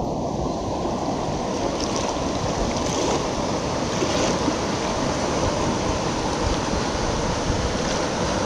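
Rushing water of a mountain stream, a steady loud rush.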